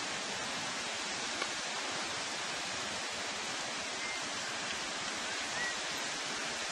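Steady rush of flowing or falling water, an even hiss without rhythm, with a few faint short high chirps in the second half.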